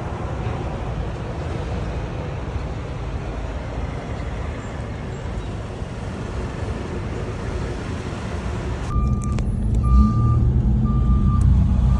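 Steady rumble and road noise of a vehicle moving slowly. About nine seconds in, it gives way to a louder low engine rumble and a reversing alarm beeping about once a second.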